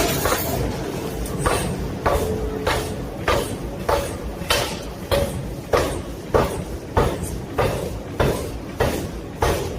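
Metal forging hammer blows striking hot steel in a steady rhythm, about one and a half strikes a second, each with a short ring.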